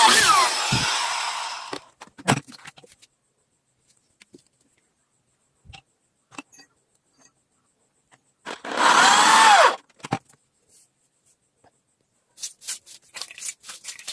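A small electric power tool run in two short bursts, about eight seconds apart, its motor pitch sweeping up and down as it speeds and slows. Near the end come a run of light clicks and taps.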